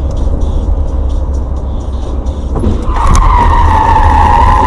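Car crash heard from a following car: a sudden bang about two and a half seconds in, then a loud, steady, high screech lasting about two seconds as a car overturns and slides along the road, over the low rumble of the car driving.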